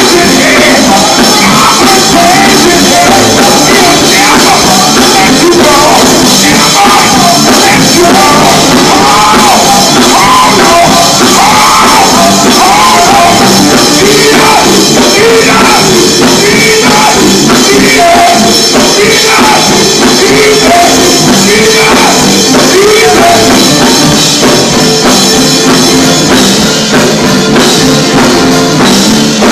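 Live gospel group singing into microphones, several voices over a band with drums and guitar. The performance is loud and unbroken.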